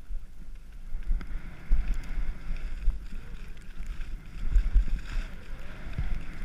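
Wind rushing and buffeting on an action camera's microphone during a downhill ski run, with skis sliding over snow underneath. The low rumble comes in irregular gusts.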